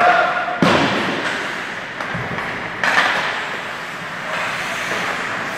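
Ice hockey play in an indoor rink: skates scraping on the ice under a steady arena hum, with two sharp impacts that ring out, one about half a second in and one near the three-second mark, typical of the puck or players hitting the boards.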